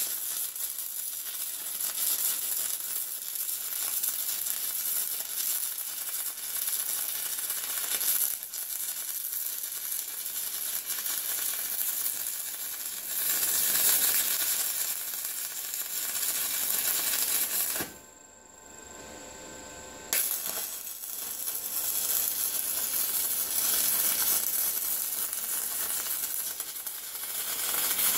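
Stick welder's arc crackling steadily as it lays a bead on the steel pin-holder plate of a tractor grader blade. About two-thirds of the way through the arc stops for roughly two seconds, then strikes up again.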